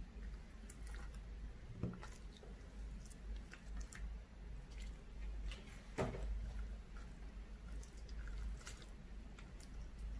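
Slime being squeezed and worked by hand: soft wet squishing with irregular sticky pops and clicks, one louder pop about six seconds in.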